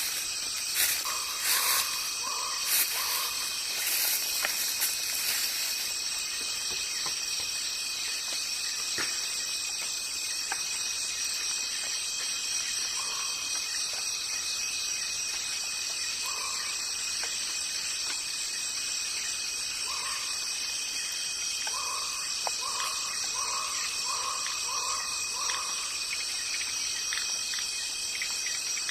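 A steady chorus of insects, crickets or similar, making a continuous high buzz. Over it come short repeated animal calls: a quick run of about four near the start, single calls in the middle, and a run of about six near the end. There are a few sharp crackles in the first few seconds.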